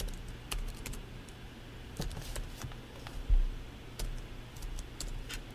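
Computer keyboard being typed on: a few scattered, irregular keystrokes, with one louder knock about three seconds in.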